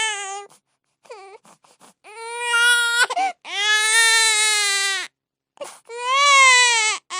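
Infant crying hard: four long, high-pitched wails of about a second to a second and a half each, broken by short catches of breath between them.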